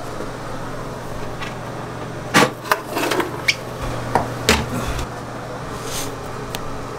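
Footsteps in socks on a tiled floor and stepping onto a digital bathroom scale: a run of sharp knocks and taps over about two seconds, starting a couple of seconds in, over a steady low hum.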